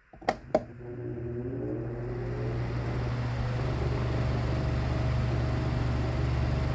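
Mainstays 12-inch oscillating table fan switched on at its highest speed: two clicks, then the motor spins up with a rising whine over a couple of seconds and settles into a steady hum and rush of air.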